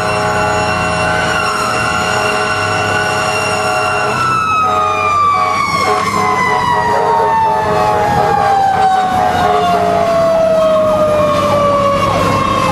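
Fire engine siren heard from inside the cab, held at a steady high pitch and then, about four seconds in, winding slowly and steadily down in pitch, as a mechanical siren coasts down. Truck engine and road rumble sit underneath.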